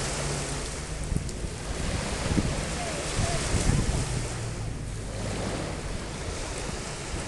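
Small waves breaking and washing onto a sandy beach, the surf swelling and easing every few seconds, with wind buffeting the microphone.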